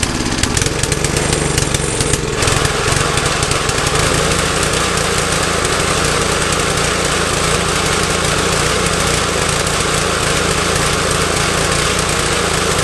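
The Briggs & Stratton engine on a 20-inch McLane reel mower running steadily after a tune-up. Its sound gets brighter about two seconds in, then holds even.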